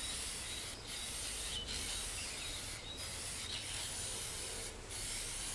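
Aerosol can of gloss lacquer spraying with a steady hiss, held down in long bursts with a few brief breaks.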